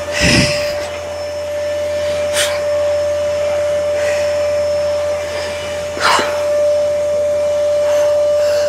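A lifter's forceful breathing through pursed lips as she braces under a barbell to press it, close on a clip-on microphone, with sharp blows near the start and twice more. A steady high hum sits underneath.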